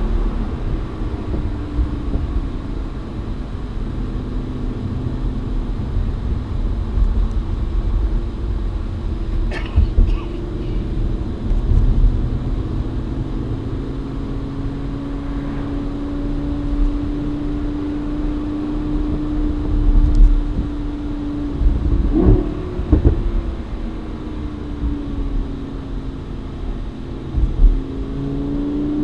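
The 2016 Lamborghini Huracán Spyder's 5.2-litre V10 is running at a steady cruise, heard from the open cockpit. Its note drifts slowly up and down with the throttle, dips with a brief change about three-quarters of the way through, and climbs again near the end. Underneath is a heavy rumble of wind and road noise.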